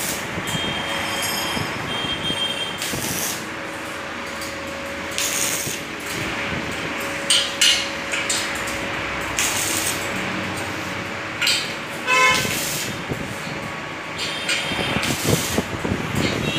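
Electric arc welding on stainless steel tube: a steady crackling hiss from the arc, broken by short sharp bursts.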